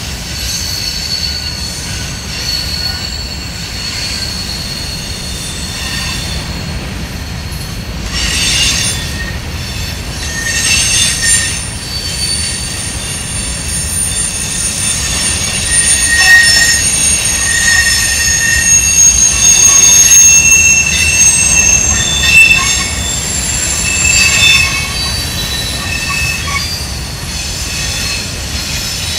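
Empty covered hopper cars of a freight grain train rolling past, their steel wheels squealing in several high-pitched tones that come and go over a steady low rumble. The squeal is loudest in the second half.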